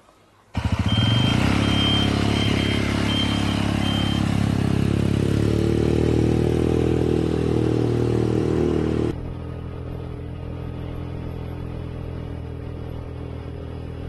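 Small petrol motorcycle-type engine running as the vehicle rides by on the road, with a short run of high beeps between about one and four seconds in. After an abrupt drop about nine seconds in, the engine runs quieter and steadier while riding.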